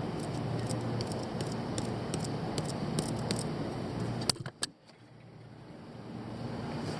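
Ford Escape 2.5 L four-cylinder engine running, a steady hum with scattered light ticks. About four and a half seconds in, two sharp clicks and the sound drops out almost completely, then builds back up.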